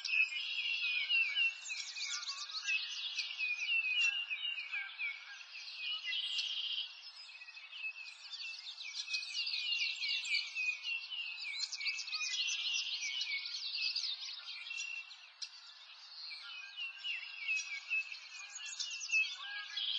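Many songbirds chirping and trilling together in a continuous chorus of overlapping high calls, thinning briefly a couple of times.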